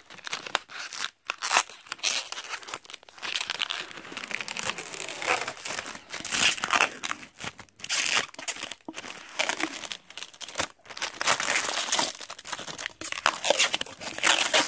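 Packaging crinkling and rustling as it is handled and pulled away: a dense run of crackles with a few brief pauses.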